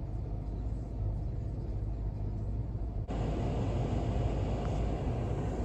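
Steady low rumble of a car, heard from inside the cabin while it idles in a line, with an abrupt change in the background hiss about three seconds in.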